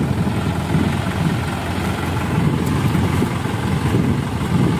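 Light truck's engine running steadily at idle, a low even rumble, while the truck sits bogged in mud.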